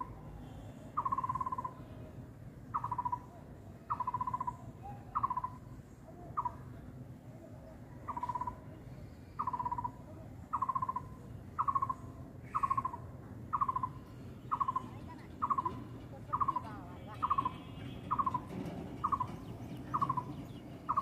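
A bird calling over and over, a short falling note repeated about once a second at an even pace.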